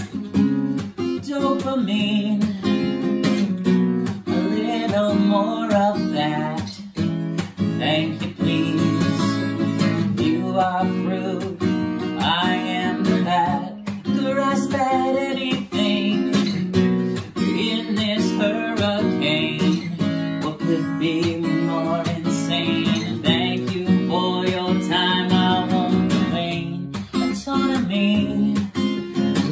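Acoustic guitar strummed in a steady rhythm as a solo accompaniment, with a man's voice singing over it at times.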